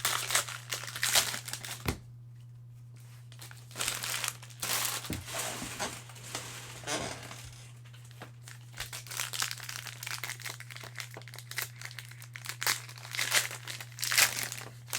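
Cellophane wrappers of trading-card cello packs being torn open and crinkled, in irregular bursts with a short pause about two seconds in, over a steady low hum.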